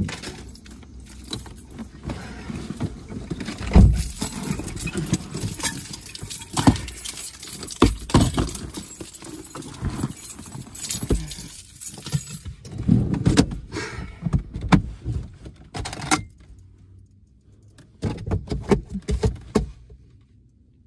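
Handling noise from a person climbing into a car seat with an armful of bags: bags and clothing rustling, keys jangling, and repeated knocks and bumps against the seat and door. It quietens in the last few seconds, with a few light clicks.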